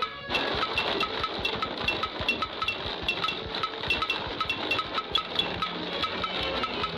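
Cartoon sound effect of hammers and chisels hacking at stone: a fast, dense clatter of strikes with a metallic ringing clink about three times a second. It starts abruptly just after the music cuts.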